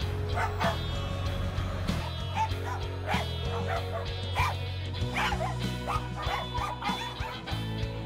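Several caged dogs yelping and barking in many short, rising-and-falling calls that grow busier from about two seconds in, over background music with a steady bass line.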